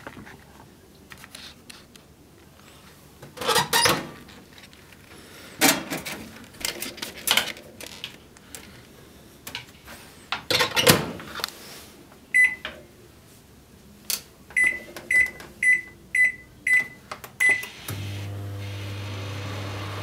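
Daewoo microwave oven being loaded and started: knocks and clatters as its door is opened and shut, then its keypad beeps once and then six times about half a second apart. Near the end it starts running with a steady low hum.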